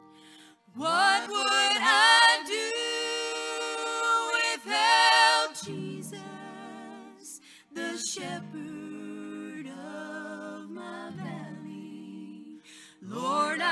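Women's voices singing a slow gospel song in harmony, unaccompanied, in phrases with short breaks between them.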